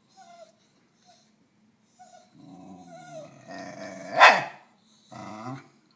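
Basenji growling in short low spells while guarding its chew from another dog, with one sudden loud bark-like outburst about four seconds in.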